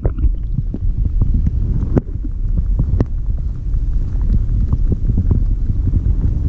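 Muffled underwater sound in a tide pool: a steady low rumble of moving water with many small clicks and pops scattered through it. It cuts off near the end.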